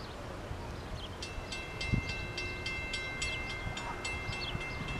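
Railroad grade-crossing warning bell starting to ring about a second in, rapid regular strikes of about five a second with the bell's tones hanging between them, signalling an approaching train. Low wind rumble and a few short bird chirps underneath.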